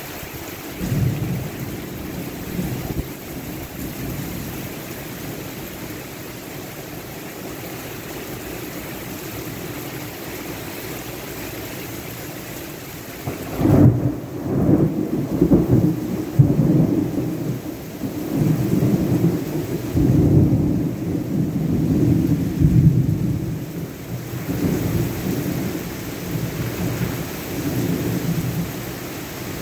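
Heavy rain pouring steadily onto pavement, with a brief low rumble of thunder about a second in. About halfway through, a long, loud peal of thunder breaks out and rolls on for roughly ten seconds before easing off.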